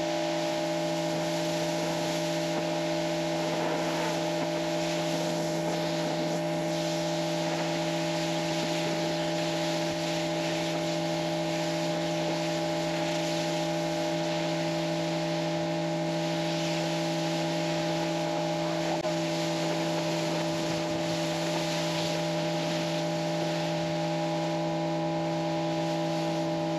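Kärcher K5 electric pressure washer running steadily with the trigger held: a constant motor-and-pump hum under the hiss of the water jet spraying onto a golf cart.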